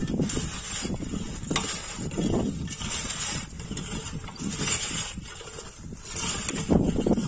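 Hand-pushed wheel weeder's blade scraping and crunching through dry, cloddy tilled soil, in uneven surges with each push.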